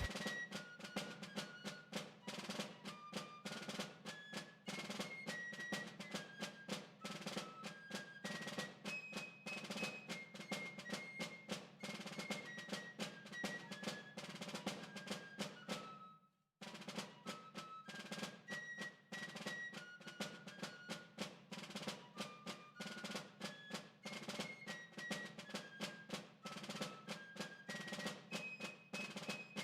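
Background music: a quick, steady percussive beat under a simple melody of short held notes, breaking off briefly about sixteen seconds in and then starting over.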